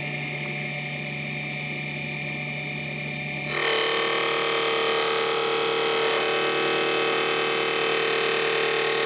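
Mini metal lathe's motor running with a steady whine while turning a wooden dowel. About three and a half seconds in the sound steps up louder and changes to a higher, hissier whine, then holds steady.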